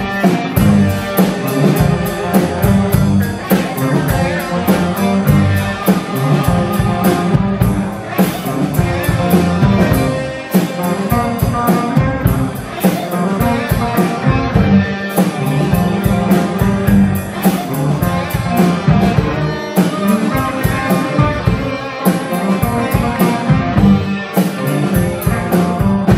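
Live blues-rock band playing an instrumental passage: electric guitars through amplifiers over a drum kit keeping a steady beat.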